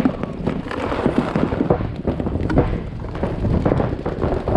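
Paintball markers firing in rapid, irregular strings of sharp pops, several to a second.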